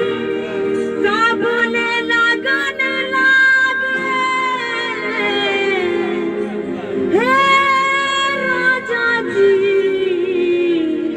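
A woman singing into a handheld microphone amplified through a portable speaker, holding long notes, with one swooping up into a held note about seven seconds in.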